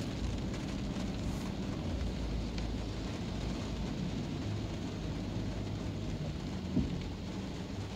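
Steady rain on a car, heard from inside the cabin, over a low rumble of the car and surrounding traffic. A single short knock about seven seconds in.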